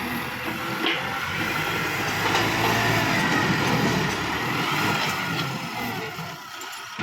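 Kubota MU5501 tractor's diesel engine running steadily, growing louder for a few seconds in the middle.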